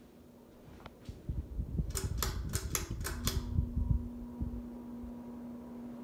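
Home Decorators Collection Palm Cove ceiling fan running with a steady low motor hum, broken about a second in by rattling and knocking and then a quick run of about six sharp, evenly spaced clicks.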